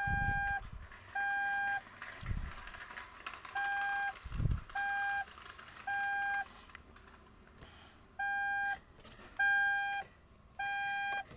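Electronic alarm beeping in groups of three: identical steady mid-pitched beeps, each about half a second long and a second apart, with a longer pause between groups. This is the temporal-three pattern of a fire or emergency evacuation alarm. A few dull low thumps come in between the beeps in the first half.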